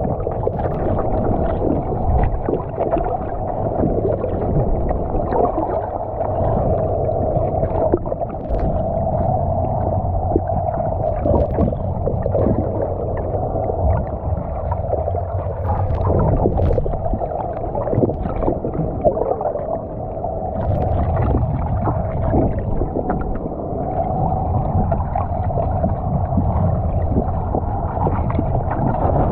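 Muffled underwater noise picked up by a submerged camera: a low rumble of moving water with a steady hum and scattered faint clicks.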